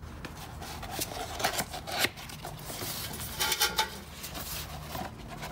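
Cardboard oil filter box being handled and opened: irregular rubbing and scraping with light clicks, and a louder rasp about three and a half seconds in.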